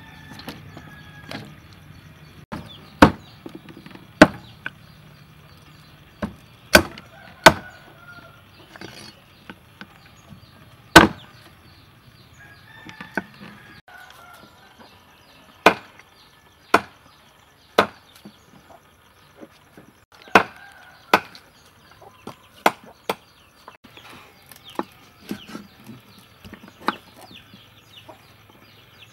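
A heavy knife chopping on a wooden chopping block in single sharp strokes, one every second or so at an irregular pace. Chickens cluck and crow in the background between the chops.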